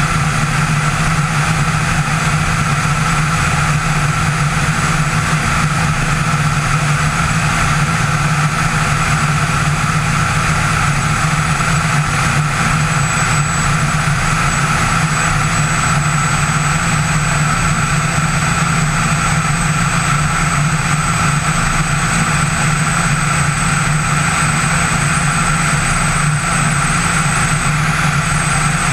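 Subaru engine and propeller of a Quickie Q2 homebuilt aircraft running steadily in flight, heard from a camera mounted outside on the airframe, with airflow noise over the microphone. The engine note holds even throughout, with no change in power.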